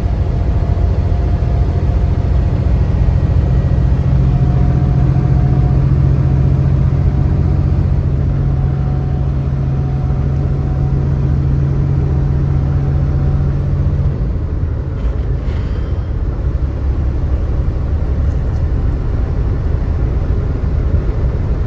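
Semi-truck diesel engine pulling a heavy load up a steep grade in a high gear: a steady low drone with a strong hum that eases about two-thirds of the way through.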